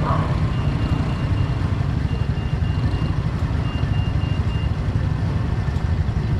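A motorcycle engine idling steadily, with groups of four or five short high beeps repeating about every one and a half seconds, like a reversing alarm, which stop about two-thirds of the way through.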